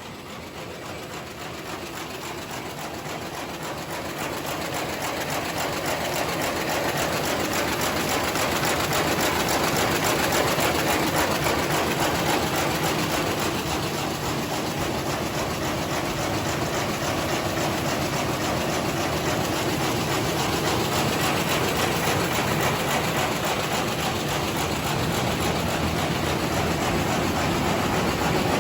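B220 square-bottom paper bag making machine running: a fast, even mechanical clatter that grows louder over the first several seconds, then holds steady.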